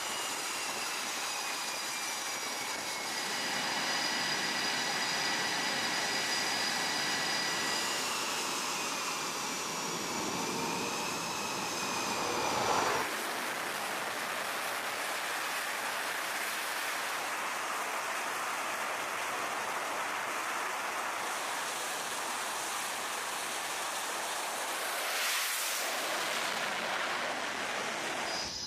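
Jet engines of F/A-18 fighters running on a carrier flight deck: a steady rushing noise with high whining tones that slide up and down. The sound changes abruptly about halfway through and again near the end.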